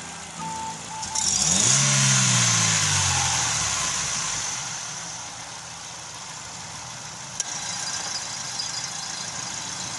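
Two short beeps, then the Chevrolet Aveo's 1.5 E-TEC II four-cylinder engine starts about a second in, revs up and settles over a few seconds to a steady idle, run to check whether the misfire is gone with the new ignition coil fitted. A sharp click near the end.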